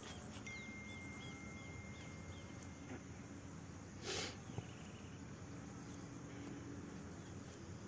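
Faint insects chirping, a high pulsing trill, with a short hiss about four seconds in.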